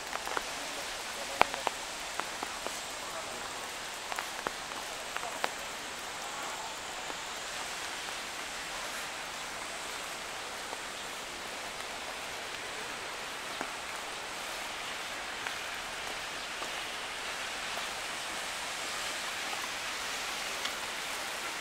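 Steady hiss of water, with a few sharp ticks in the first few seconds.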